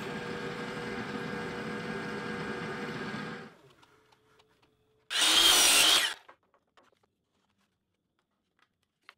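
Drill press motor running steadily as the bit bores a hole through a hardwood block and dowel, then winding down with a fading hum after it is switched off. About five seconds in comes one loud burst of noise, under a second long.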